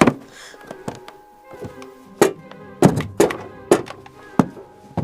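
A series of sharp knocks and thuds, about six spread over a few seconds, over background music with steady held tones.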